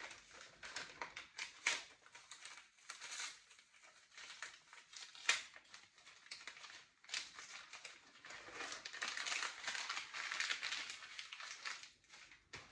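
Wrapping on a small parcel crinkling and rustling as it is unwrapped by hand: faint, irregular crackles that grow busier in the second half.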